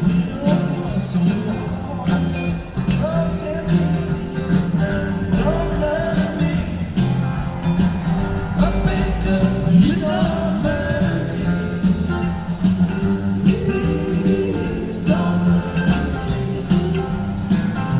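Country-rock song with a singer and guitars playing at a steady beat.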